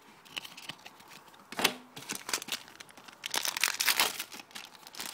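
Foil booster-pack wrapper crinkling and rustling as it is handled along with the cards, densest about three and a half seconds in. A brief voice sound just before the middle.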